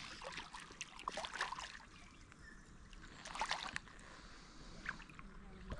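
Hooked rainbow trout splashing and thrashing at the water's surface while being played on a fly rod, in two short flurries of splashes, about a second in and again about three and a half seconds in.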